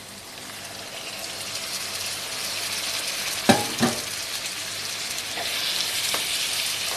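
Freshly added diced tomatoes sizzling as they fry with green beans, eggplant and onion in a frying pan, the sizzle growing louder. A wooden spatula stirs them, knocking against the pan twice about three and a half seconds in.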